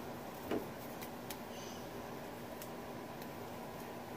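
Quiet room tone with a few faint, scattered clicks and one brief soft sound about half a second in.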